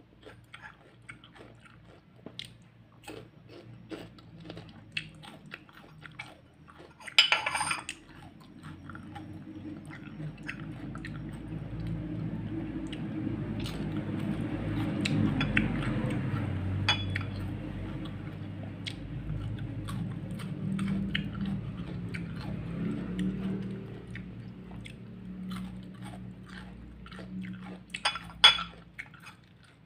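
Close-up crunchy chewing and biting of raw bitter melon (ampalaya) slices, with many small crunches and mouth clicks and a louder crunch about seven seconds in and again near the end. A low rumble swells up through the middle stretch and fades away again.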